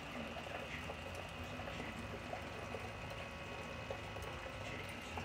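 Water running steadily through a small tabletop sluice with an expanded-metal riffle, washing gold concentrate spooned in at the head, over a low steady hum.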